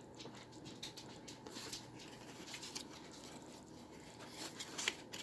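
Paper and cardstock being handled: faint rustling with scattered light taps and clicks as a piece is slid out of and back into a paper pocket, with a slightly sharper tap near the end.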